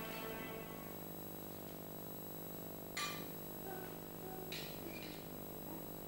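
A metal ladle clinking against a metal cooking pot as food is served at the table: one sharp clink about three seconds in and a lighter clatter about a second and a half later, over a steady hum.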